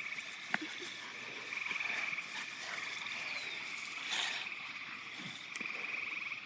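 A steady, high trilling animal chorus, swelling and easing in strength, with a couple of short knocks from the rough-and-tumble play on the grass.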